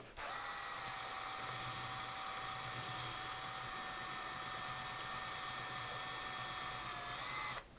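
Cordless drill spinning a wire brush against a small-engine cylinder head, scouring off carbon deposits: a steady whine over a hiss, rising slightly in pitch just before it stops near the end.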